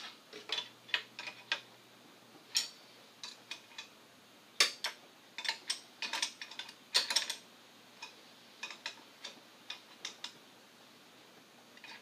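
Irregular sharp clicks and taps, some in quick runs of two or three, as hands work the plastic tubing and push-connect fittings of a high-pressure air compressor's water and air lines.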